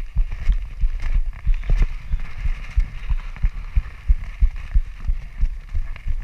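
Wind buffeting the microphone of a chest-mounted GoPro on a moving road bike: an irregular low rumble of thumps, several a second, over a steady hiss.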